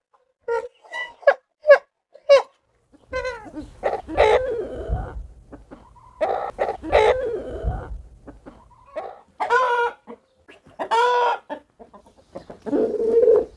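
Roosters clucking and calling: a run of short, quick clucks first, then a series of longer, drawn-out pitched calls about a second each. A low rumble sits underneath the calls in the middle.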